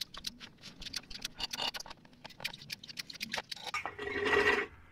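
Hand siphon pump being stroked to push ATF+4 into a Jeep JL's manual transmission, its strokes making quick, irregular clicks. About four seconds in, a louder sucking gurgle lasting about a second as the quart bottle runs low.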